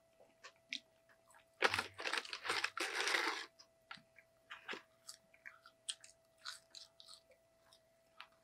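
Close-miked chewing and crunching of McDonald's french fries and chicken nuggets. A louder burst of crunching comes about two seconds in and lasts a second or two, followed by soft, scattered mouth clicks.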